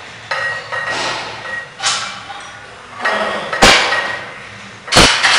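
A heavy plate-loaded barbell in a back squat: a sharp knock as the lifter stands up with it, then loud metal clanks near the end as the bar is set back into the steel squat stands.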